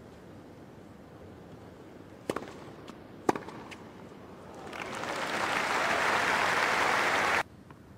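Tennis ball struck hard by racquets twice, about a second apart, with a couple of fainter ticks between and after, over a low crowd hum in a large stadium. Then the crowd applauds, swelling for a few seconds before cutting off abruptly near the end.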